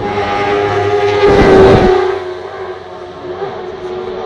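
A racing sidecar outfit's 600 cc four-stroke engine at high revs, passing at speed: its note grows louder to a peak about a second and a half in, cuts down sharply as it goes by, then carries on fainter into the distance.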